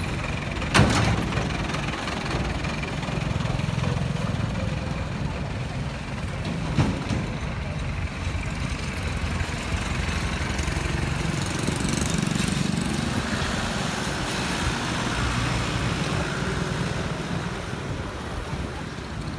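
Small truck's engine running steadily amid road traffic, with a sharp knock about a second in and another about seven seconds in.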